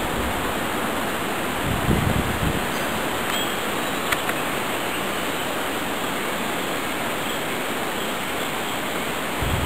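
Steady rush of a shallow stream running over stones in a rocky, flood-scoured bed, with a brief low rumble about two seconds in.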